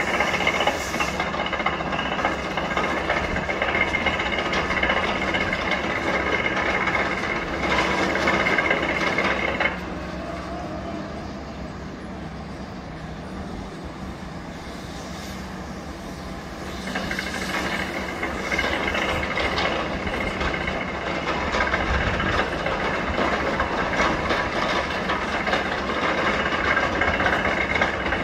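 Steady mechanical noise with several high whining tones over a hiss. It drops to a lower, duller level for several seconds partway through, then comes back up.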